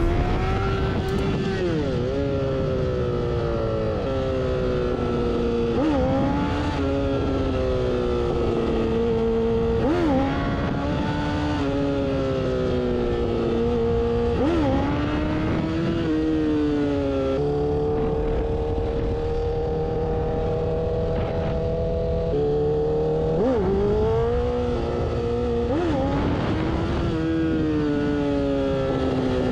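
A 2008 Honda CBR1000RR's inline-four engine under way, heard from the rider's seat: it is revved up sharply every few seconds, with the pitch sinking slowly between the blips, over a steady rumble of wind and road noise.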